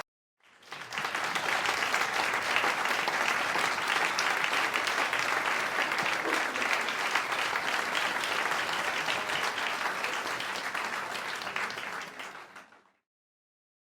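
Audience applauding: dense, steady clapping from many hands that swells in within the first second, holds, and fades out about a second before the end.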